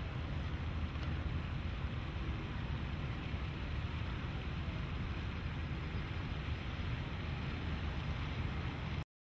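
Steady wind buffeting the microphone outdoors, a low rumble with a hiss over it and no distinct motor tone; it cuts off abruptly near the end.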